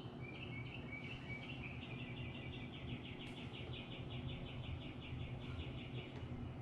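A bird trilling in the background: rapid repeated short notes, about six a second, in phrases that step up in pitch. A low steady hum runs underneath, and there is a faint click about three seconds in.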